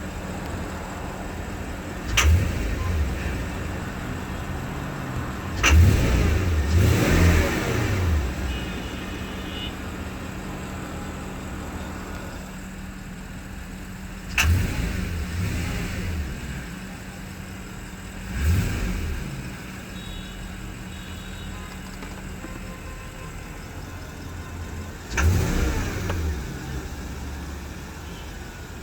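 Porsche Cayenne S engine idling with a steady hum and blipped about six times, each rev starting with a sharp click and rising then falling in pitch. The owner calls it a weird noise he cannot identify.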